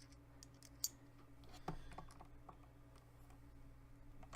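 Scattered light clicks and taps of a small Phillips screwdriver and fingers against a laptop's plastic case and screws, the sharpest click a little under a second in, over a faint steady hum.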